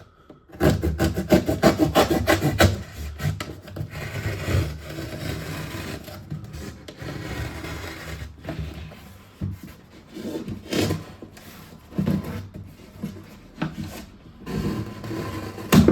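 A knife sawing through a corrugated cardboard box with fast back-and-forth rasping strokes, then steadier rasping, then slower separate strokes. A sharp knock comes at the very end.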